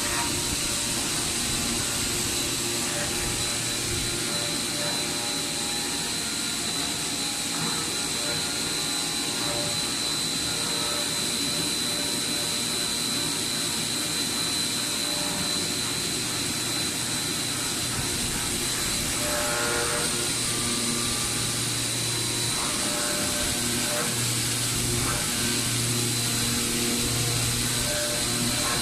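Aoke flatbed sample-cutting plotter running: a steady machine whir with a constant high whine. A low motor hum joins in for stretches in the second half.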